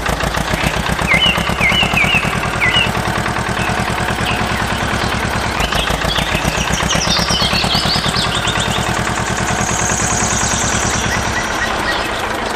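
Tractor engine running at a fast, steady chug. Short bird chirps come in about a second in and again around six seconds.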